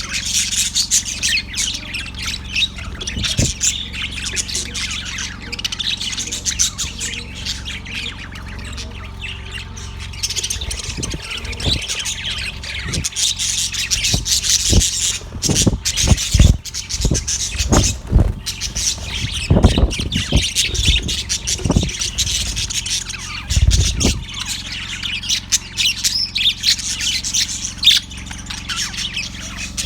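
Budgerigar chirping and chattering continuously in quick, high-pitched notes, with a few low thumps in the middle of the stretch.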